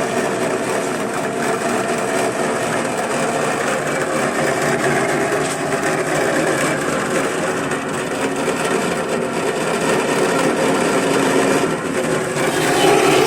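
Soybean splitting machine for tempeh running steadily, a dense mechanical whir and rattle.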